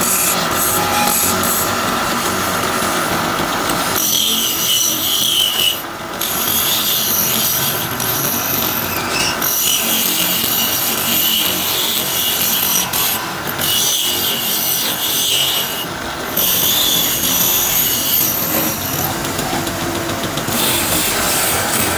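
Wood lathe spinning a turned wooden spindle while a hand-held chisel cuts into it: a continuous scraping hiss of shavings coming off the wood, broken several times by short gaps where the tool lifts away.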